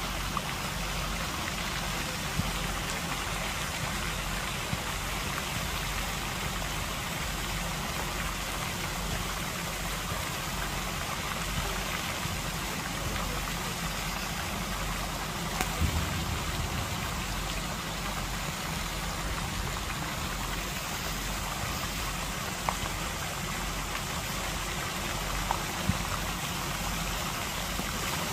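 Fountain jets in a lake splashing onto the water: a steady hiss of falling spray, with a low rumble underneath.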